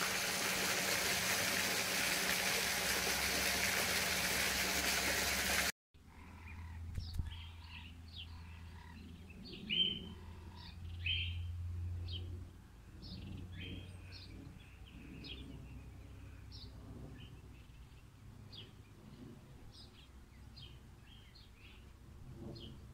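A steady hiss for about the first six seconds that cuts off abruptly, then small birds chirping in short, repeated calls over a faint low rumble.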